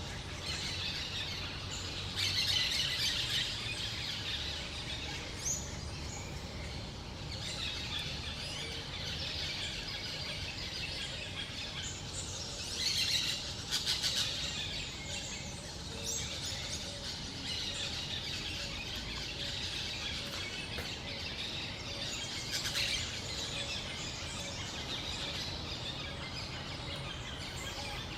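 A pair of parakeets chattering without a break in high, rapid chirps, with louder flurries of calls a couple of seconds in, around the middle and again later on.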